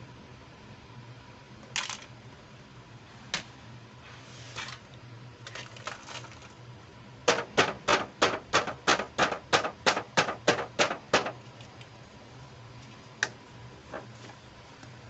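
Sharp clicks and taps from small plastic toy accessories and their packaging being handled, with a quick run of about fifteen taps, about four a second, in the middle.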